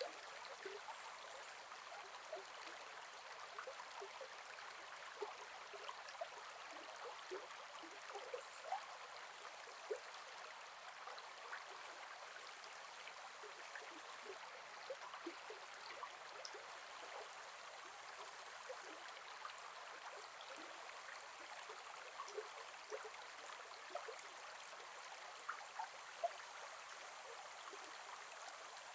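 Gentle forest river flowing: a steady soft rush of water with constant small bubbling and gurgling blips throughout.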